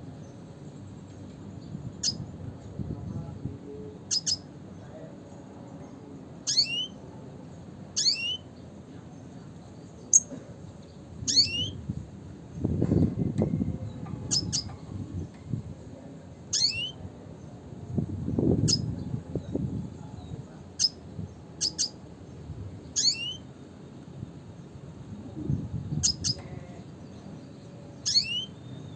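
Red siskin calling: short, sharp, high notes that sweep steeply downward, repeated every second or two. A low rumble rises in the background a few times.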